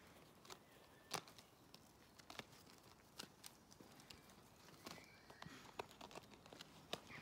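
Faint, scattered light clicks and scuffs of a puppy scampering over gravel with a small plastic plant pot in its mouth, the sharpest click about a second in.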